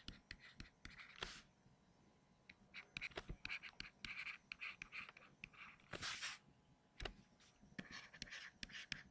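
Faint taps and scratches of a stylus writing on a tablet screen, a run of small ticks and short scrapes as letters are formed.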